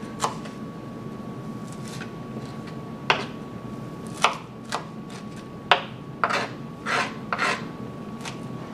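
Kitchen knife chopping cilantro on a plastic cutting board: about nine sharp, irregular chops, sparse at first and coming closer together in the second half.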